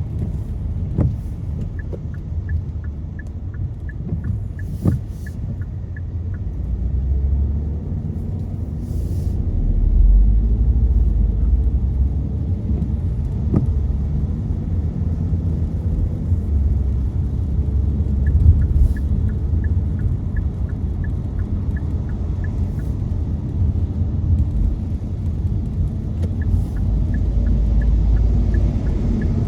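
Car interior while driving on a wet road: a steady low rumble of tyres and engine that swells a few times. A light, fast, regular ticking comes in about two seconds in, stops, and returns near the end.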